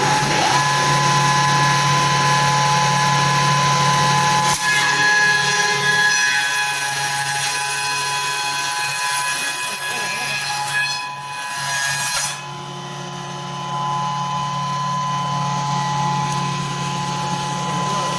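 Wood dowel milling machine running, its motor humming and whining steadily while the rotating cutter head mills wood stock into round rod with a loud, rasping hiss. About 12 seconds in the cutting hiss drops away sharply and the motor runs on more quietly.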